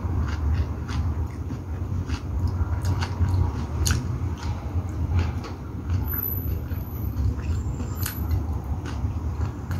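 A person chewing a mouthful of rice and chicken adobo eaten by hand, with many small, sharp mouth clicks. A steady low rumble runs underneath.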